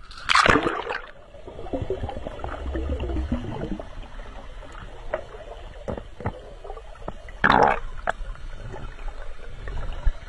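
Water splashing and sloshing, with two loud splashes, one about half a second in and one about two-thirds of the way through, and scattered knocks between them.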